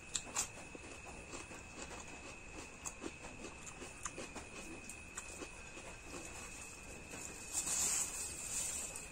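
Close-miked eating sounds: wet chewing, lip smacks and small clicks from someone eating mutton curry and fish by hand, with a louder crunching, rustling stretch near the end. A steady faint high-pitched whine runs underneath.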